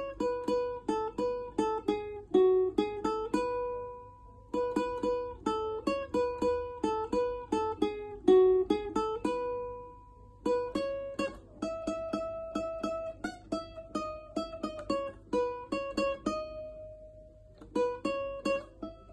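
Solo ukulele picking a slow melody in single plucked notes. It plays in phrases separated by brief pauses, with the last note of a phrase left to ring out.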